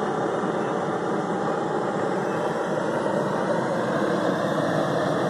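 Gas burner running steadily, blowing hot air into a giant paper balloon to inflate it.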